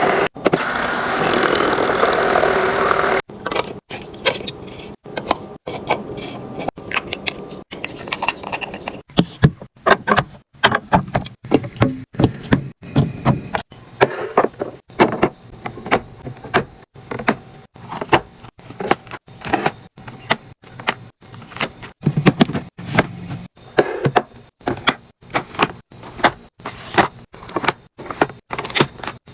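About three seconds of steady rattling noise that cuts off abruptly, then a long run of short clicks, clacks and knocks from food containers and packaging being handled and set down, broken up by sudden cuts.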